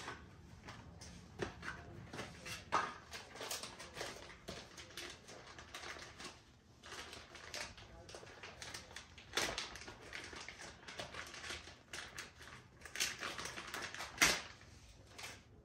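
Irregular rustling, clicks and taps as bike parts, packaging and papers are handled, with a sharp knock about fourteen seconds in.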